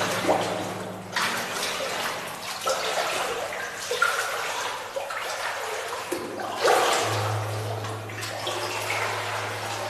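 Footsteps wading through shallow water on a tunnel floor, an irregular splash and slosh with each stride.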